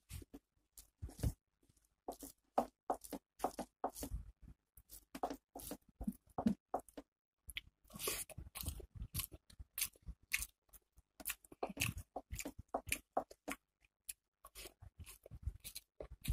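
Close-up eating sounds: irregular wet chewing and mouth smacks as rice and chicken and fish curry are eaten by hand, along with the squish of fingers working rice into curry on a steel plate. There is a short pause about seven seconds in.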